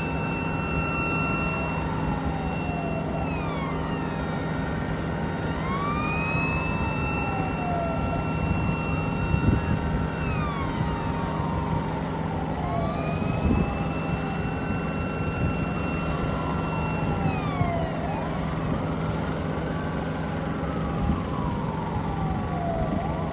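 Emergency vehicle sirens wailing over a steady low hum. One siren rises, holds high for a few seconds and falls, about every six seconds, while a second siren overlaps it, sweeping up and down more quickly.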